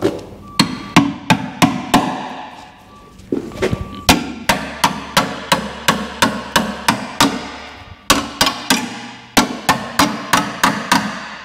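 Hammer blows on a car's steel wing-bracket mount, in quick runs of about three strikes a second with short pauses between, each blow ringing briefly. The mount's spot welds have been drilled out and it is being knocked free, but it holds, which the mechanic suspects is a missed spot weld.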